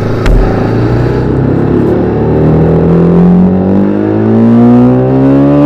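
TVS Apache RR310's 312 cc single-cylinder engine running, with a short thump about a quarter second in. From about two seconds in, the revs climb steadily and keep rising to the end.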